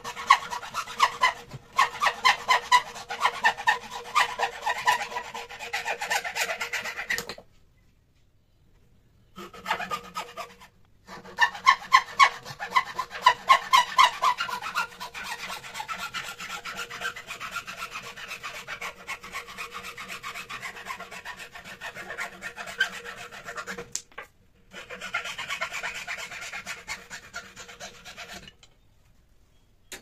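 Hacksaw cutting into a small clamped wooden knob blank, rasping in rhythmic back-and-forth strokes, roughly two to three a second. The sawing stops short a few times and picks up again.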